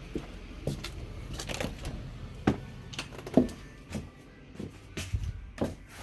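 Irregular light knocks and clicks over a low rumble, with two louder knocks a little after the middle.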